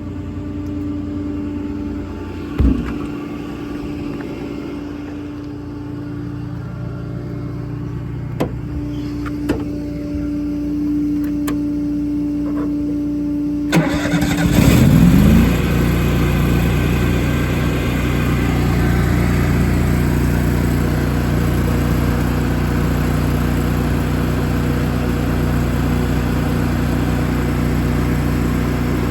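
Steady hum with a few clunks, then an engine cranks and starts about 14 s in, its pitch rising briefly before it settles into a steady idle.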